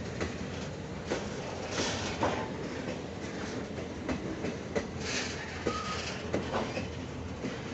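Loaded coal hopper wagons of a freight train rolling past: a steady rumble with irregular clacks of the wheels over the rails. Brief hissing screeches come about two seconds and five seconds in.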